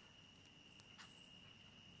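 Near silence with a faint, steady high-pitched insect drone, such as crickets, and a couple of faint ticks about a second in.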